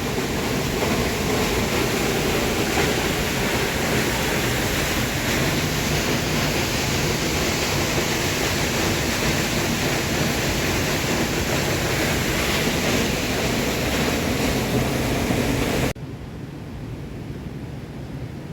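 Chepkiit Waterfall's water pouring down onto rocks: a loud, steady rush. About sixteen seconds in it cuts abruptly to a quieter, duller rush.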